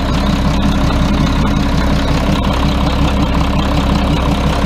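Yuchai diesel engine of a Chinese front loader running steadily with an even, unbroken rhythm.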